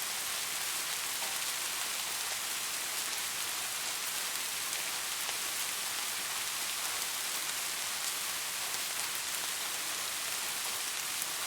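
Steady rainfall: an even hiss of rain with scattered drops ticking on a surface.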